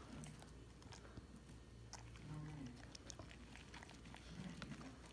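Samoyed eating soft cake: faint chewing and licking with scattered small mouth clicks.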